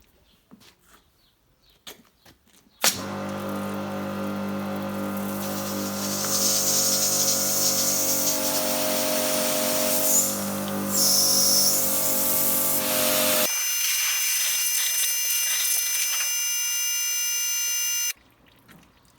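Kärcher K5 pressure washer starting suddenly about three seconds in and running with a steady hum. The hiss of its water jet joins a couple of seconds later. Near the end the low hum cuts out and only a high whine remains.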